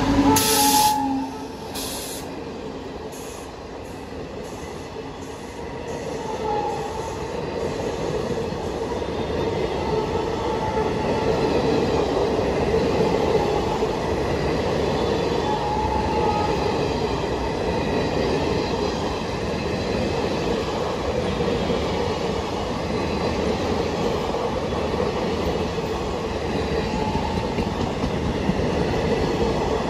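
WAP-7 electric locomotive passing close by, loudest in the first two seconds with two sharp bursts of wheel and running-gear noise. A long rake of passenger coaches then rolls past steadily, with a run of evenly spaced wheel clicks a few seconds in and brief faint wheel squeals now and then.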